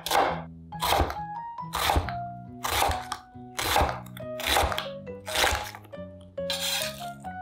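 Background music with a light melody over a knife slicing through fresh radish on a cutting board, one crunchy stroke with a thud on the board about once a second.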